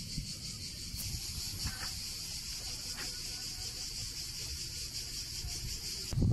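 Cicadas in a steady, high, shrill chorus with a fast pulsing texture, which cuts off suddenly near the end. A low rumble lies underneath.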